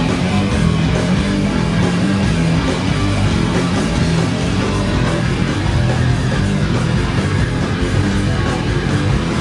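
Loud, dense heavy rock music with guitars, playing continuously.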